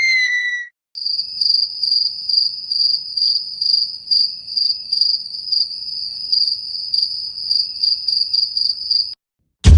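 Cricket chirping sound effect, the stock 'awkward silence' gag: an even, high chirp repeating about twice a second. It opens on the tail of a falling whistle and is cut off near the end by the sudden start of a loud boom.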